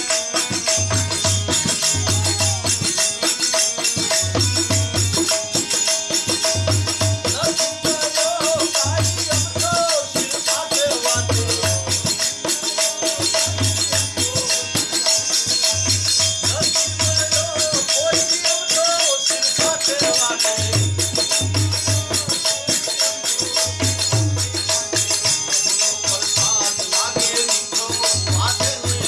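Instrumental interlude of a Gujarati devotional bhajan: a wavering melody over low drum beats in an uneven rhythm, with steady jingling rattle percussion throughout.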